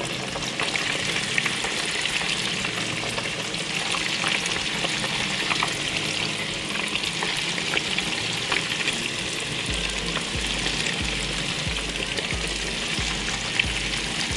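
Floured striped bass pieces deep-frying in hot oil in a skillet: a steady sizzle with frequent small crackling pops.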